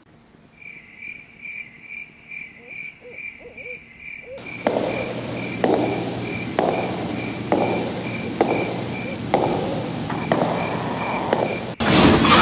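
Night-time sound effects: crickets chirping steadily, about three chirps a second, with an owl hooting. A louder pulsing layer joins about four seconds in, and a sudden loud burst of sound cuts in near the end.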